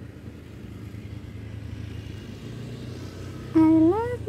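A motor vehicle engine rumbles low and steady nearby. About three and a half seconds in comes a loud, short call that rises in pitch.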